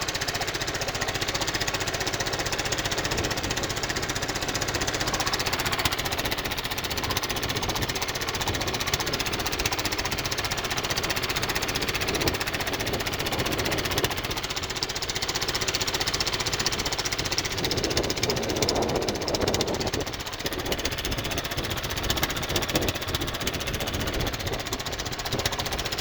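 Small boat's engine running steadily under way, with a fast, even knocking beat.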